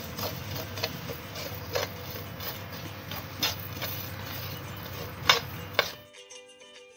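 A spoon stirring and scraping whole coriander and fennel seeds as they dry-roast in a pan over low heat, the seeds rustling with a sharper click now and then as the spoon catches the pan. About six seconds in it cuts off abruptly to soft background music.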